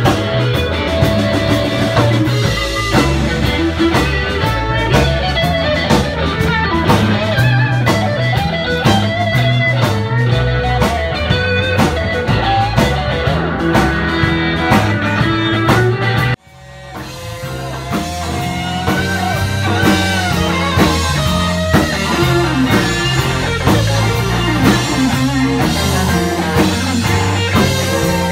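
Live rock band playing: electric guitar lead with string bends over a drum kit. About two-thirds of the way through, the music cuts off abruptly and fades back in on a different passage.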